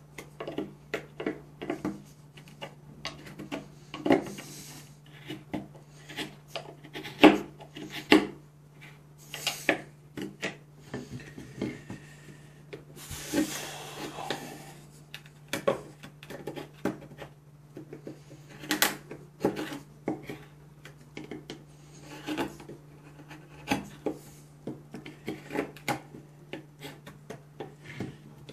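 Mora Companion carbon-steel knife blade cutting through a pine block in short, irregular strokes, scraping and crunching in the wood, with a few sharper knocks and a longer scraping stretch about halfway through.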